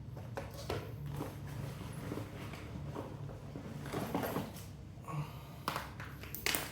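Scattered rustles and a few sharp clicks and light knocks of objects being handled, the sharpest near the end, over a steady low hum.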